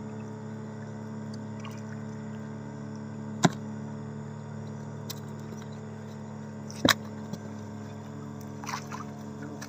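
Steady low hum of a running motor, with two sharp knocks about three and a half and seven seconds in, as a wet drift net is hauled hand over hand into a boat.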